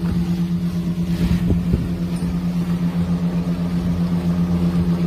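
Fishing boat's engine running at a steady speed: a constant low hum with a fast, even pulse. A few light knocks come about a second and a half in.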